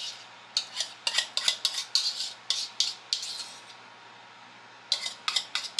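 A kitchen utensil scraping and clinking against a bowl in quick repeated strokes, about three a second, with a short pause a little past halfway. It is the thick cream-of-chicken soup mixture being scraped out onto the chicken.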